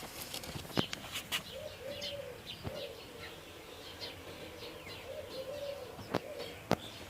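A dove cooing, a few low coos, with small birds chirping faintly and several sharp clicks.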